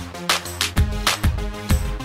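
Background music with a steady beat, about two beats a second, over a sustained bass line.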